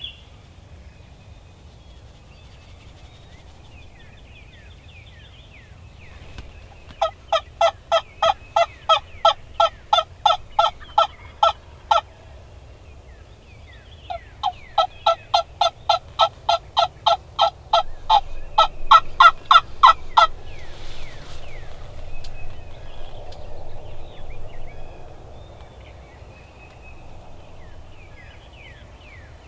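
Turkey yelping: a long run of evenly spaced yelps, about three a second, for about five seconds. After a short pause comes a second run that grows louder near its end. Faint songbird chirps sound in the background.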